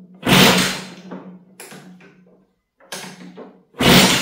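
Kick-starting a freshly rebuilt 1998 Kawasaki KX80 single-cylinder two-stroke with no choke. Two hard kicks, one just after the start and one near the end, with lighter clatter between them. The engine turns over but does not fire.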